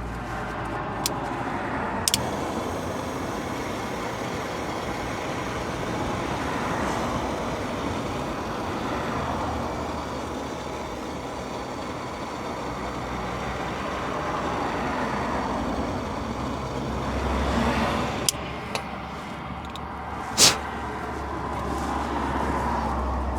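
Handheld gas torch burning with a steady hiss, a few sharp clicks or taps over it. It cuts off suddenly at the end.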